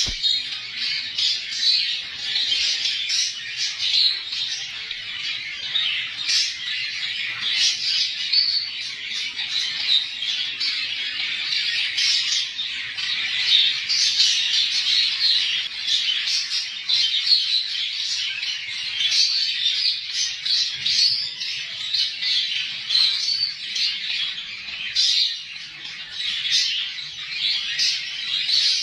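Many small cage birds chirping and chattering at once, a dense, unbroken wash of overlapping high-pitched calls.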